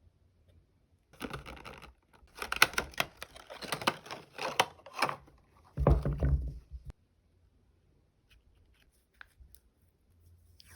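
Plastic wrapping rustling and crinkling as it is handled, in bursts for several seconds, with a heavier rubbing stretch near the end, then a few light taps.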